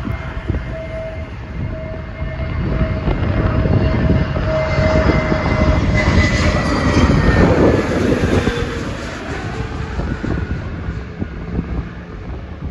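Jet airliner passing low overhead on approach to land: a steady rumble with engine whine tones that slowly fall in pitch as it passes, building to its loudest a few seconds in and then fading.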